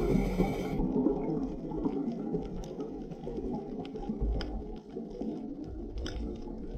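Muffled underwater sound through a GoPro dive housing on a reef: a low rumbling murmur with scattered sharp clicks. A bright hiss, most likely the diver's regulator, cuts off under a second in.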